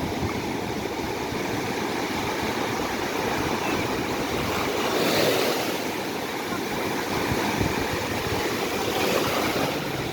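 Black Sea surf from a long, ocean-like swell: waves breaking and washing up the beach, with two louder breaks about five and nine seconds in.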